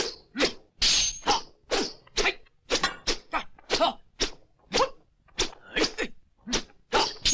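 Dubbed kung fu film fight sound effects: a rapid run of swishes, thwacks and clacks of weapon strikes, about two to three a second, mixed with the fighters' short shouts and grunts.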